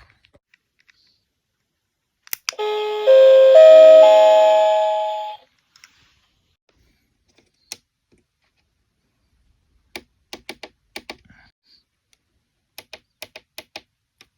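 Restaurant table call-button chime from a Hanjyou call system: a click, then a several-note electronic chime that sounds for about three seconds and fades out. Later come two quick runs of light clicks.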